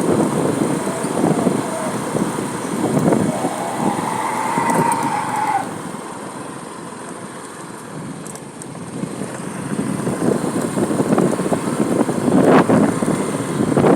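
Road traffic in a jam: vehicle engines and the rumble of passing traffic. A held, horn-like tone sounds for about two seconds, four to five seconds in. The noise eases from about six to nine seconds in, then builds again.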